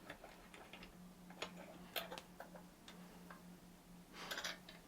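Faint, irregular light clicks and taps of hand tools being handled on a workbench, with a short cluster of taps near the end, over a steady low hum.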